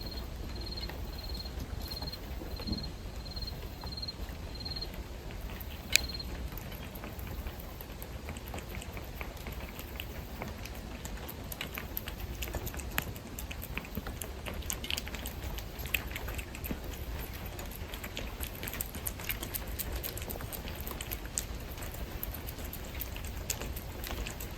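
Scattered light clicks and patter over a steady low hum, with one sharper click about six seconds in. An insect chirps steadily about twice a second, stopping about five seconds in.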